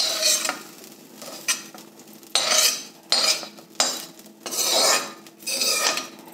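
Metal spatula scraping around the inside of an empty metal kadhai, scooping out the last of the fried paneer stuffing in about six quick scrapes with light clinks.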